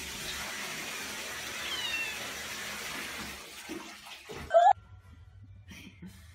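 A cat meowing over a steady hiss of rushing water from a toilet: a few thin, high, falling mews in the first two seconds, then one loud rising meow about four and a half seconds in as the water sound stops.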